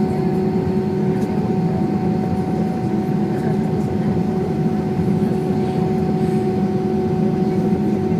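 Airbus A320 jet engines heard inside the passenger cabin: a steady rumble with a constant droning hum that does not change pitch.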